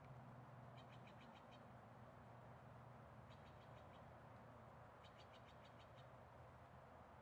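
Three short, faint, high-pitched trills from a small animal, each a quick run of repeated notes at about eight a second, coming about a second in, again around three and a half seconds in, and from about five to six seconds in, over a steady faint low hum.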